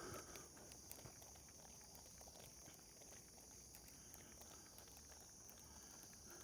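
Near silence: faint outdoor ambience with a steady high-pitched hiss and a few faint ticks.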